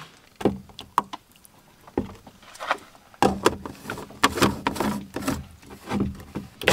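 Handling sounds: scattered knocks and clicks as a carton and a personal blender cup are picked up and set down on a wooden counter. A low steady hum comes in about three seconds in.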